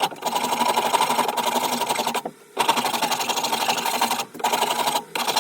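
Wood rasp scraping across a wooden axe handle in long strokes, taking wood off the handle's shoulders to fit the axe eye. The strokes come in stretches of one to two seconds with brief breaks between them.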